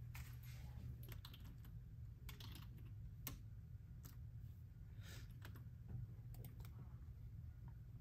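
Faint, irregular clicks of a computer keyboard and mouse being used at a desk, a few scattered taps at a time, over a steady low room hum.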